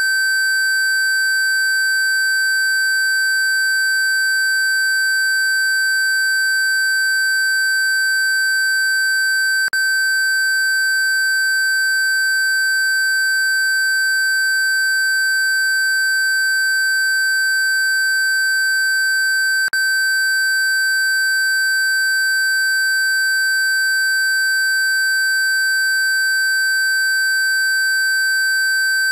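A steady, pure 1550 Hz sine tone held at one pitch, broken by a brief click twice, about ten seconds apart.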